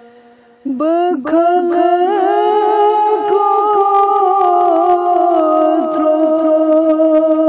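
A single voice singing a naat, an Islamic devotional song in praise of the Prophet, with no instruments. A held note fades away, then under a second in a new phrase starts on a rising pitch and goes into long held notes with small turns.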